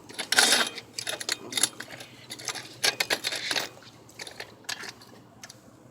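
Irregular rattling, clicking and scraping from a BMX wheel and tire being worked on by hand, with a loud scrape about half a second in and another around three seconds in, then a few lighter taps.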